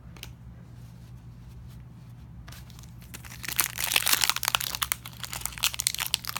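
Plastic-foil trading card pack wrapper being crinkled and torn open. It starts about three seconds in, after a quiet stretch with only a steady low hum, and carries on as a dense run of crackling.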